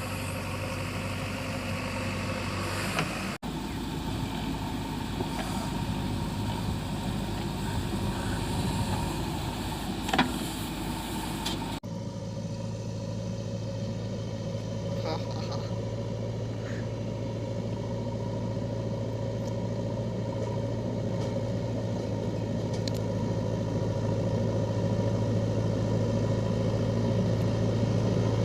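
Diesel engine of heavy machinery running steadily with a low, even hum. The sound changes abruptly twice, about three seconds in and again about twelve seconds in.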